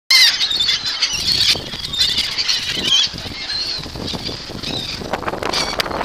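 A flock of gulls calling overhead, many high cries overlapping, thickest in the first three seconds and thinning out after.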